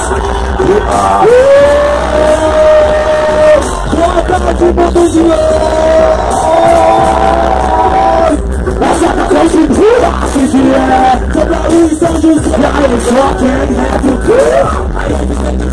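Live hip-hop music over a stage PA: a DJ's beat with a steady heavy bass under a vocalist. Long held sung notes fill the first half, and about eight seconds in they give way to a vocal line that bends up and down.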